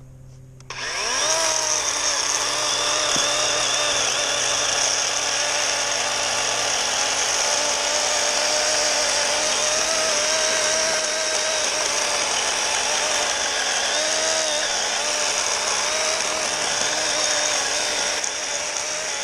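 DeWalt cordless electric chainsaw spinning up with a rising whine just under a second in, then running steadily as it cuts through a log, its pitch sagging briefly under load partway through.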